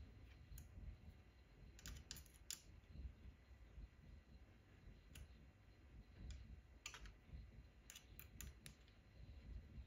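Faint, scattered clicks of a hex screwdriver turning a long screw into the plastic housing of a Bambu Lab A1 extruder head, a cluster about two seconds in and another from about seven seconds in, over quiet room tone.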